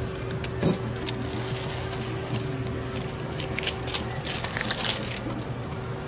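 Paper sandwich wrap crinkling and rustling in gloved hands as subs are rolled up and wrapped, with scattered sharp crackles throughout.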